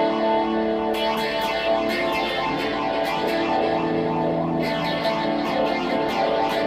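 Background music led by a plucked guitar with effects, held notes under a run of crisp ticks that grow busier near the end.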